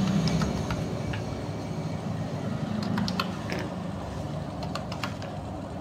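Scattered single clicks of a computer mouse and keyboard, a few each second at most, over a faint low steady hum.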